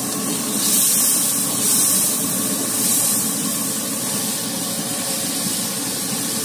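A large kadai of fish cooking over a fire, sizzling and bubbling with a steady hiss that swells a few times in the first three seconds.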